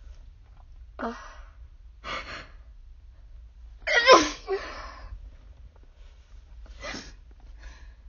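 A woman with a cold sneezing: one loud, voiced sneeze about four seconds in, with shorter, quieter breathy sounds before and after it.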